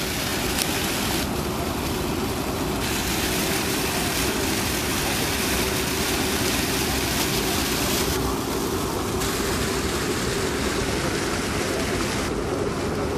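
Fountain water splashing and falling in a steady rush: jets of water dropping back into a pool and water spilling over a ledge.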